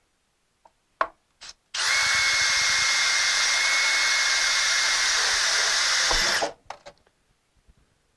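Power drill running steadily for about five seconds as it bores a mounting hole, with a steady high whine over the cutting noise. It starts about two seconds in and stops sharply; a click comes just before it.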